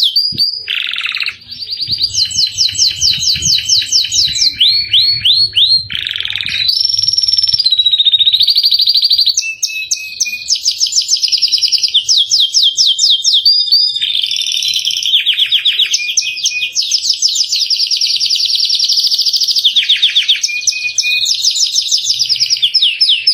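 Domestic canary singing continuously: long fast trills and rolling phrases, with a few lower descending notes between them.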